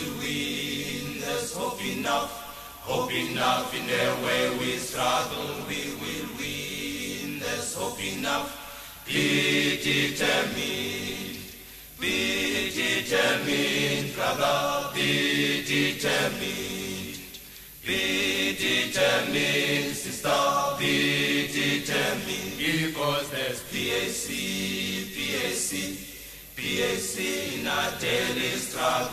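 A choir of voices singing a cappella in a chant-like style, in long phrases with short breaks between them.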